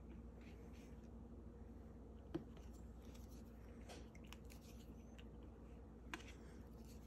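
Faint taps and clicks of a diamond painting pen picking resin drills from a tray and pressing them onto the canvas, with two sharper clicks, one about two seconds in and one near the end, over a low steady hum.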